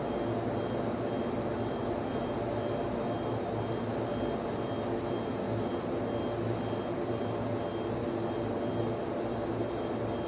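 Server room ambience: steady whir and hum of cooling fans in servers and network switches, with a faint high tone pulsing on and off.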